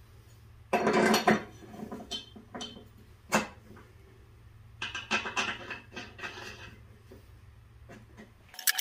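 Sharp metal clinks and scrapes as a stamped steel mower-deck pulley and its spindle nut are handled and set onto the spindle shaft, with the loudest clinks about a second in and near three and a half seconds. Right at the end, an air impact wrench starts up.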